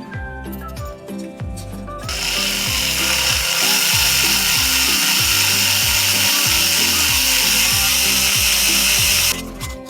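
Background music with a steady beat. About two seconds in, a loud steady hiss starts, covering the music, and it cuts off suddenly near the end.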